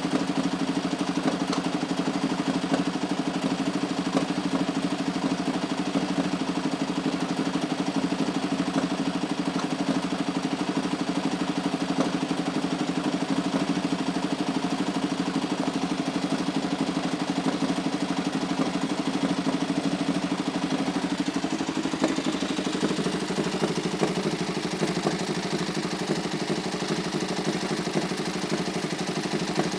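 Motorcycle engine idling steadily, warmed up after a long run. Its tone shifts slightly about three-quarters of the way through.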